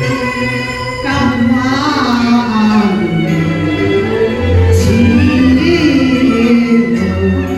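Cantonese opera singing: a woman's voice sustains and bends long wavering notes over instrumental accompaniment.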